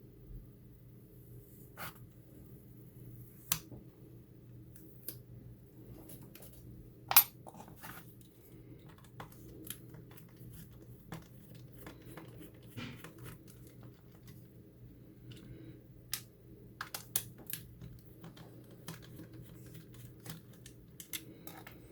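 Scattered small clicks and taps of a screwdriver, small screws and plastic housing parts being handled while a portable tire inflator is taken apart, with one sharper click about seven seconds in. A faint steady low hum sits underneath.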